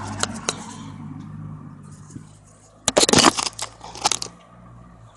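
Brake caliper piston compressor tool being worked against the caliper: scattered metal clicks, then a loud crackling, scraping burst about three seconds in and a shorter one about a second later, as the piston is pushed back into its bore.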